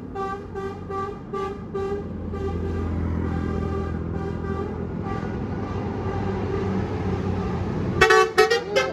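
Bus 'telolet' musical horn, a Basuri multi-trumpet horn, sounding a quick run of short pitched toots, about two or three a second, over the bus engine running. About 8 seconds in comes a louder burst of rapid, chopped horn notes.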